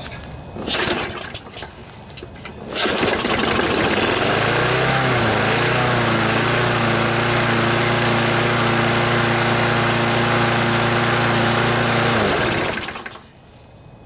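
Briggs and Stratton lawnmower engine pull-started on starting fluid sprayed into the carburetor: it catches about three seconds in, wavers in pitch briefly, then runs steadily for several seconds before winding down and stopping. It is the run that shows the engine is still good.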